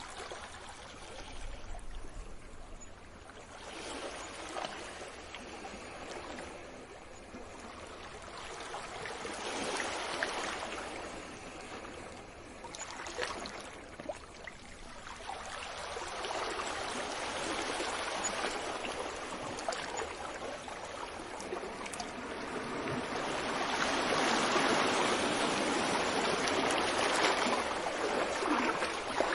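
Waves washing onto a beach, the surf swelling and ebbing in slow surges, with the longest and loudest wash building from about halfway through.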